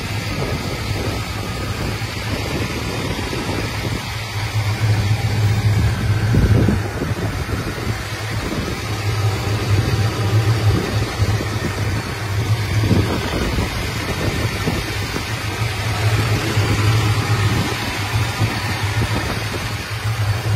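1969 Plymouth Road Runner's 383 V8 idling steadily.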